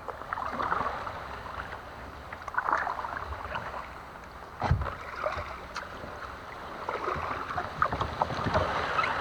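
Kayak paddle strokes through the water, splashing and dripping in uneven surges, with a single knock about halfway through.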